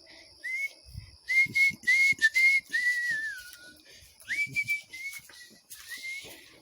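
Whistling: a string of short high notes, most sliding up a little at their start, with one longer note falling away about three seconds in. Brief rustles and soft knocks of handling sound in between.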